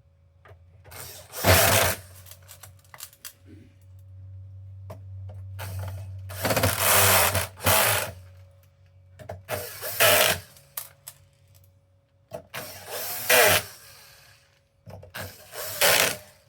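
Heavy electric drill-driver driving screws, running in five short bursts about a second or two each, with its motor pitch shifting within some bursts as the screws seat.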